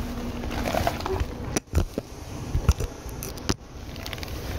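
Seibu 2000 series electric train running, heard from inside the car as a steady low rumble. Several sharp, loud knocks about two, three and three and a half seconds in break up the rumble, with brief moments where the sound nearly cuts out.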